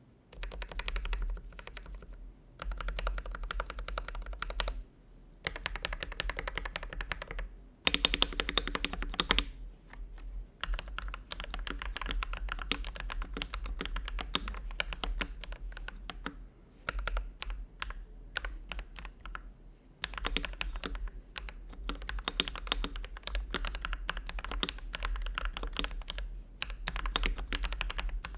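Typing sound test on a Keychron V1 mechanical keyboard fitted with lubed CIY EVO Red linear switches and cherry-profile PBT keycaps, which give a clacky sound. Fast runs of keystrokes come in bursts with short pauses between them, and there is a louder flurry at about eight seconds in.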